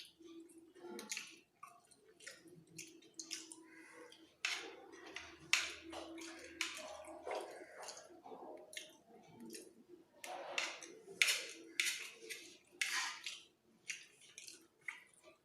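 Close-up eating of bhaat bhaja (Bengali fried rice): quiet chewing with many short, irregular wet mouth clicks and smacks.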